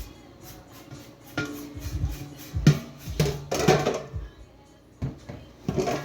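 Dishes and pots being handled and clattering: several knocks and clinks, some ringing briefly, over background music.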